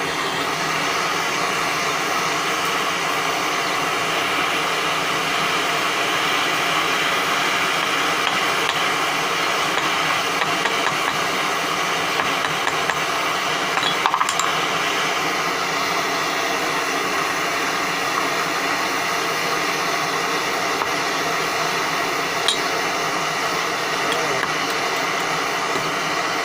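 Torch flame burning with a steady rushing noise as it heats a crucible of silver and tin that is not yet hot enough to melt fully. A few brief clicks sound about halfway through and again later.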